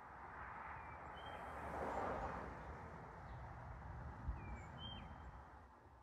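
Outdoor ambience: a steady hiss and low rumble that swells for a second or so about two seconds in. A bird gives two brief high chirps, about a second in and again near five seconds, and there is a short low thump a little past four seconds.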